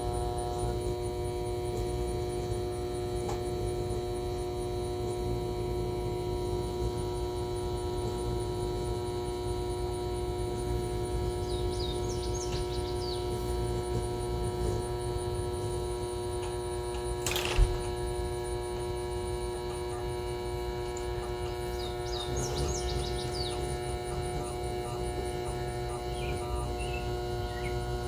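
Proctor Silex blender's small electric motor running at a steady pitch with a constant whining hum, being run on continuously to burn it out. One sharp click comes about two-thirds of the way through.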